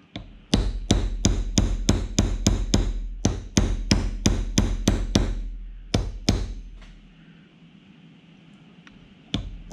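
Small hammer tapping a pin punch on a roll pin in a model engine's flywheel hub. The light metal-on-metal taps come about four a second for some five seconds, then two more, a pause, and a few more near the end.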